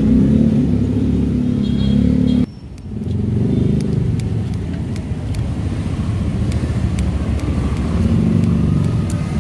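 A motor vehicle engine running with a low rumble, which drops out abruptly about two and a half seconds in and comes back. From about four seconds in, small kitchen scissors snip repeatedly through a fried topping in a bowl, a series of sharp clicks.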